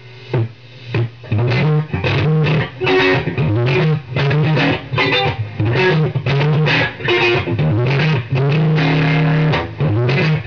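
Electric guitar playing low riffs in short phrases with brief breaks between them.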